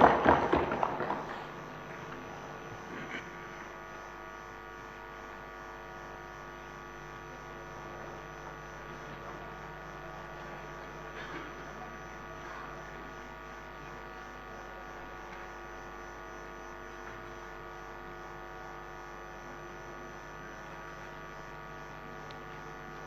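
Steady electrical mains hum made of several constant tones, with no speech. A louder burst of noise fades out in the first second or so.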